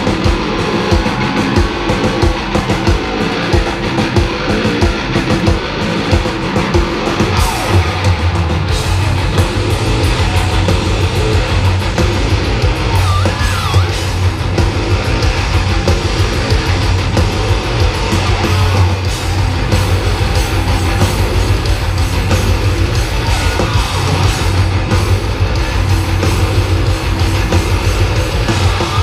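Heavy metal band playing live through a stage PA: distorted electric guitars over fast drumming. About eight seconds in, a heavy low note sets in and is held under the guitars.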